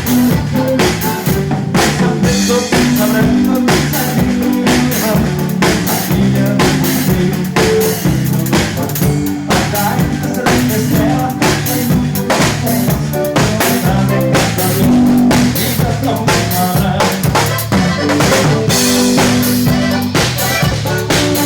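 Live band playing an instrumental passage of gaúcho dance music, with a drum kit keeping a steady, even beat over a moving bass line.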